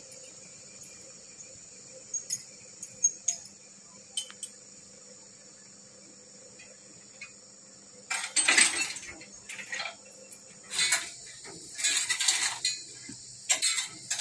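Steady high-pitched drone of forest insects, with a few sharp clicks in the first half. From about halfway, loud irregular rustling and crunching noises come and go over it.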